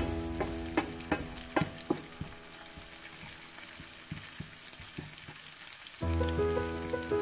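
Chopped onion sizzling in hot oil in a frying pan while a wooden spoon stirs it. A steady faint hiss carries through, with several sharp knocks and scrapes of the spoon against the pan in the first two seconds and a few scattered ones after.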